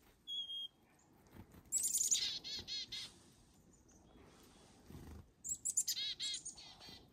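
Black-capped chickadees calling: a short steady whistled note at the start, then two chick-a-dee calls, each a quick run of very high notes followed by several repeated lower dee notes, about two seconds in and again about five and a half seconds in.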